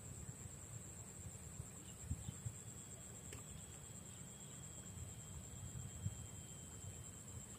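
A steady, high-pitched chorus of insects, with a low rumble and a few soft thumps underneath.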